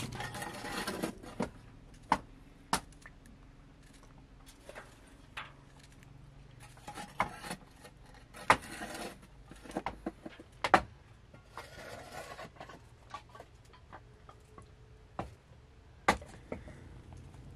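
Small knife slicing garlic cloves held in the hand, the cut pieces dropping onto a ceramic plate: scattered sharp clicks and taps with a few brief rustles.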